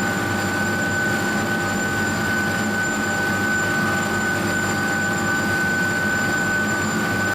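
Copper-melting tilting furnace plant running: a steady industrial roar with a constant high-pitched whine, unchanging, that cuts off suddenly at the end.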